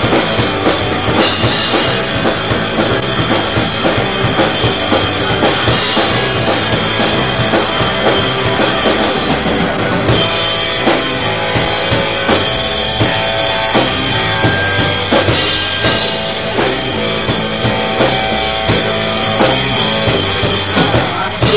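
Garage punk band playing a song: two electric guitars, bass and a drum kit with a steady bass-drum and snare beat. It is a demo recorded on a boombox in a basement, so the sound is dense and unpolished.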